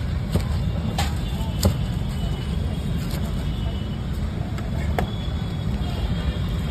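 Steady low rumble of street traffic, with three sharp clicks in the first two seconds and another about five seconds in.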